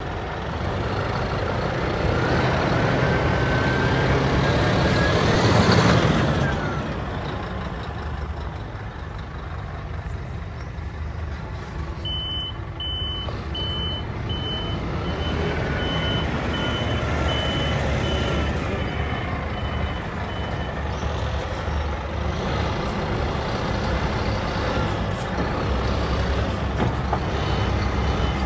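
2012 Scania P230 skip-loader truck's nine-litre five-cylinder diesel running, revving up and back down about five or six seconds in. While the truck backs up, from about twelve to twenty seconds in and again near the end, its reversing alarm beeps about twice a second.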